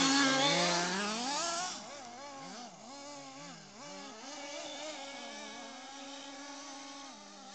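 Small petrol-engined remote-controlled cars running, their engines' pitch repeatedly rising and falling as they rev and back off. A loud, long rising rev comes in the first two seconds, then the engines are fainter, still revving up and down.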